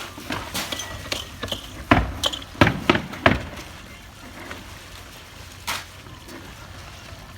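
Nailing on a shingle roof during installation: a run of sharp knocks, the three loudest coming about 0.7 s apart around two to three seconds in, with fainter clicks before them and one more later.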